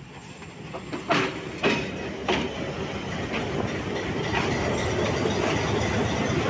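Diesel locomotive rolling slowly past close by under caution, its engine running and wheels clacking over rail joints. Three sharp clacks come about a second in and at half-second spacing, then a steady rumble grows louder as the locomotive draws alongside.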